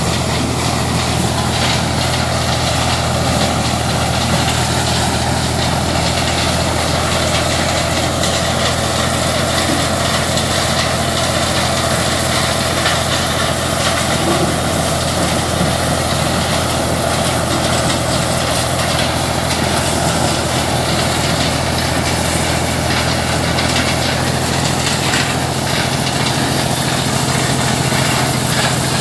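Ford tractor's engine running steadily while driving a PTO-powered corn sheller that is shelling corn, the engine's low drone mixed with the sheller's constant noisy rush of cobs and chaff.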